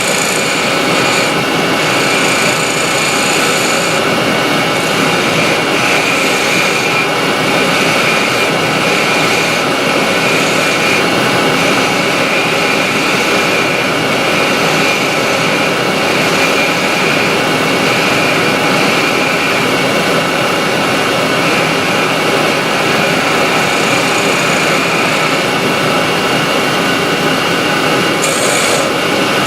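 Dust extractor and Union Jubilee wood lathe running together: a loud, steady noise with a constant high whine.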